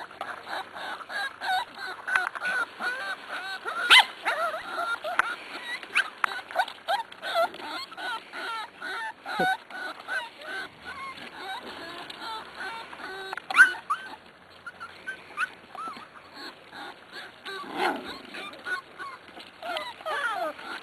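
Corgi puppies whining and yipping, a steady run of short high-pitched cries, with a sharper, louder yelp about four seconds in and another about halfway through.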